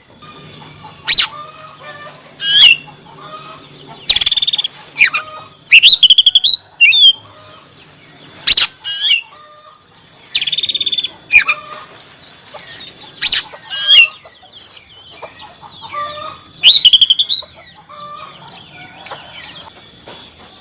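Oriental magpie-robin (kacer) singing loud, varied whistled phrases with quick pitch slides, broken by two harsh buzzy rattles, one about 4 seconds in and one about 10 seconds in.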